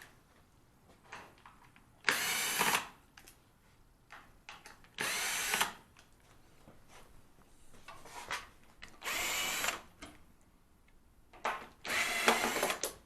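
Cordless power driver running in four short bursts a few seconds apart, backing screws out of the refrigerator door hinge.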